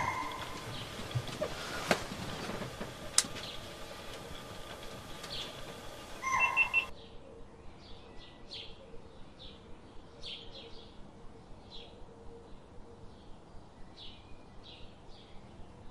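Dry-forest ambience with short, high bird chirps repeated about twice a second, most regular in the second half. A brief louder call comes about six seconds in.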